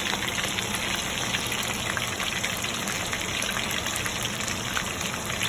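Chicken lollipops sizzling in hot frying oil: a steady sizzle with many small crackles and pops throughout.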